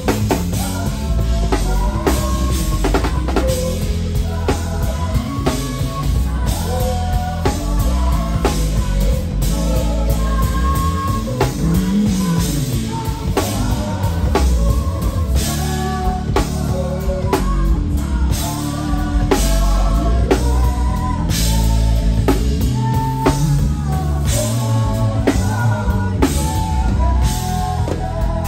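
Live band music led by an acoustic drum kit heard up close: a steady beat of drum hits and cymbals over bass, with singing above it.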